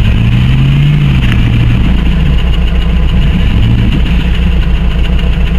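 A car engine running steadily at low speed, with a slight rise in pitch about half a second in and again near four seconds.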